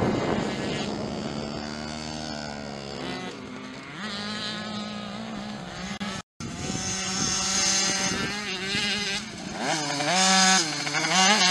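Small two-stroke motocross minibike engines revving up and down. The sound breaks off briefly about six seconds in, then comes back, with two quick rises and falls in revs near the end.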